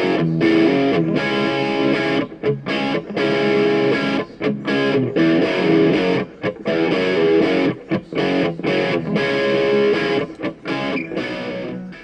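Outro music led by a distorted electric guitar playing rhythmic chords, which stops abruptly at the end.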